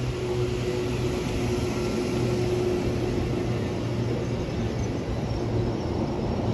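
Steady hum and rumble of an E233-series electric train standing still, with a steady low tone running through it.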